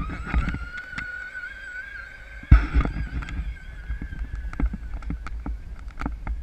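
Steady high electric motor whine, rising slightly in pitch and fading near the end, over a low wind rumble on the microphone. A sharp knock about two and a half seconds in.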